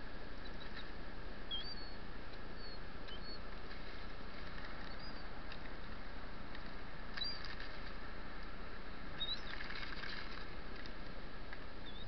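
Shorebirds giving a scattering of short, high chirps over a steady hiss of surf and wind.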